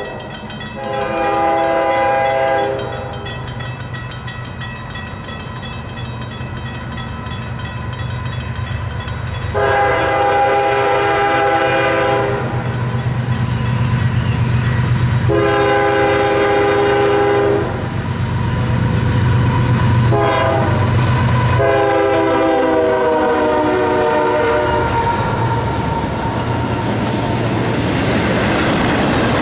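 Union Pacific freight locomotive's air horn sounding a chord in five blasts: one long blast, then long, long, short, long, the standard grade-crossing warning, over a low diesel rumble that grows as the train nears. Near the end the freight cars roll past with the clatter of wheels over the rail joints.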